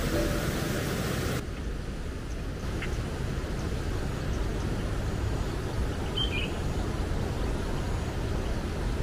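Outdoor ambience at dawn: a steady low rumble, with one short bird chirp about six seconds in.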